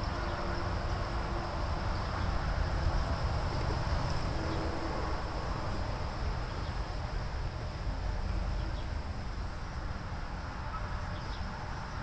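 Steady high chirring of insects, with a low steady rumble underneath and a few faint small clicks from hands working among engine-bay hoses.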